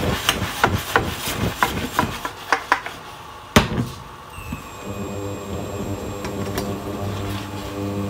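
Metal spatula clacking and scraping against a stainless steel pan while stir-frying, a quick run of sharp clacks through the first half with the loudest about three and a half seconds in. After that the clacks thin out under background music.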